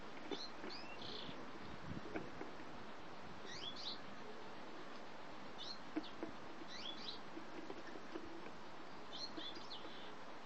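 Greenfinches in show cages calling with short, quick rising chirps, heard in about five brief clusters a couple of seconds apart. A few light clicks come between the calls.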